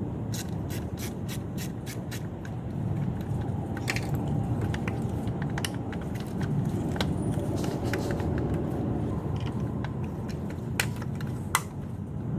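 Hand tools and metal parts clicking and clinking at irregular intervals, over a steady low rumble.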